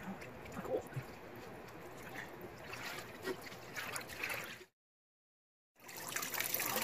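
Water in a hydro-dipping tank lapping and splashing softly as a bicycle frame is pushed and swirled through the floating paint film. The sound drops out completely for about a second, then comes back louder as the frame is lifted out and water runs off it.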